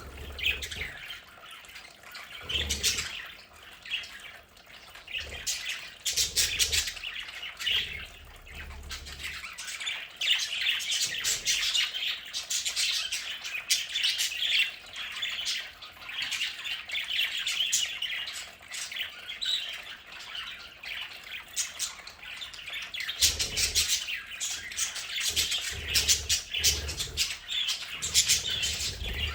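A flock of budgerigars chattering and chirping without a break, with short squawks. Scattered knocks and clicks come in bunches near the start and again near the end.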